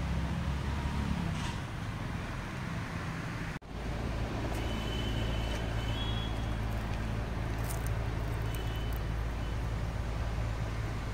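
Steady low background rumble that drops out for an instant about three and a half seconds in, with a few faint, short high-pitched chirps later on.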